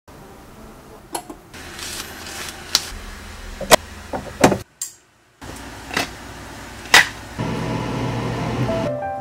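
Handling of darkroom film-developing gear: a series of sharp clicks and knocks several seconds apart, with a brief silence in the middle. From about seven and a half seconds in a steady hum sets in.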